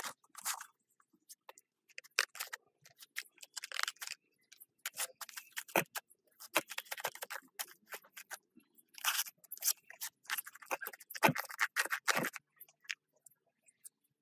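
Blade cutting and scraping soft, fibrous plant-stem mould out of a cast cement stove's opening: irregular slicing and scraping strokes in short runs, with two dull knocks, one near the middle and one about three-quarters through.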